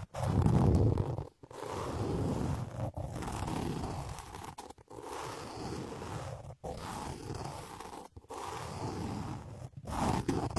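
Scraping and brushing strokes rubbed right against a binaural microphone, as ASMR triggers. They come in passes of about a second and a half, each cut off by a short break, with a heavy low rumble in the loudest pass near the start.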